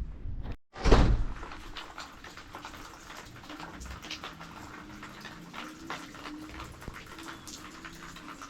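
A brief drop to silence, then a sharp knock about a second in, followed by a steady hiss of light rain with scattered drip ticks.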